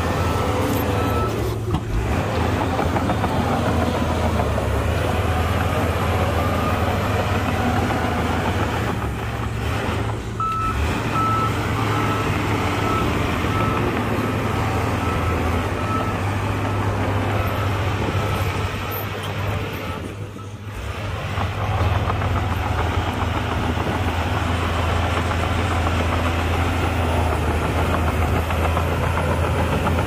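Heavy diesel earthmoving machinery running with a steady deep drone, and a reversing alarm beeping in an even series from about ten seconds in until near the twenty-second mark.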